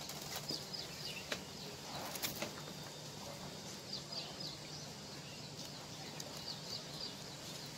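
Small birds chirping faintly in short, high runs of quick notes, several times. A few sharp clicks sound in the first couple of seconds.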